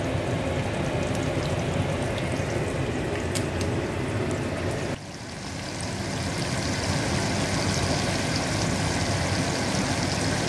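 Breaded snakehead fillets sizzling and bubbling in hot frying oil in a pot, a steady sizzle. About halfway through it drops suddenly and then builds again with more crackle.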